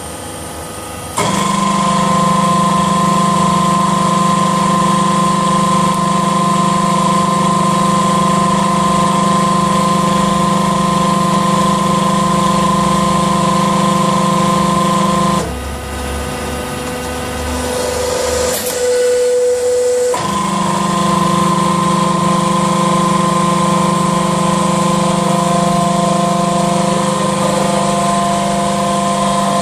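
Charcoal extruder and cutting machine running with a steady motor hum and whine. The hum starts about a second in, drops out for about five seconds midway, when a single sharp click is heard, then starts up again.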